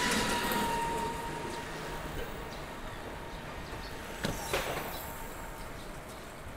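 Street traffic noise, steady, during a bicycle ride. A thin steady tone at the start fades out after about a second, and two sharp clicks come about four seconds in.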